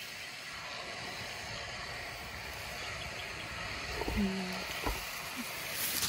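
A steady faint outdoor hiss with no talking, broken about four seconds in by a short hum from a person's voice.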